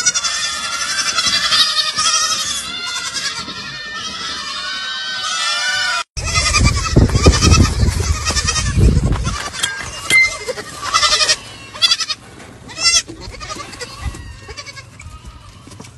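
A crowd of baby goats bleating, many high calls overlapping at once. After a break about six seconds in, a loud low rumble joins the scattered bleats for a few seconds, and the calls then thin out and grow fainter.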